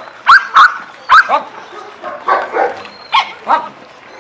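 Dogs barking and yelping: about eight short, sharp barks, the loudest three in the first second and a half, the rest spaced out toward the end.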